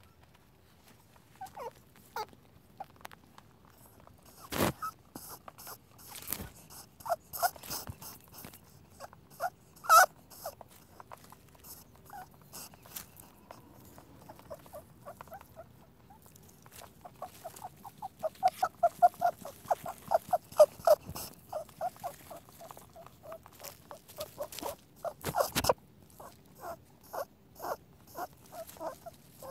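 Rabbit noises: scattered short squeaks and clicks, with a few sharp clicks and, from about seventeen seconds in, a fast run of short squeaky pips lasting about five seconds.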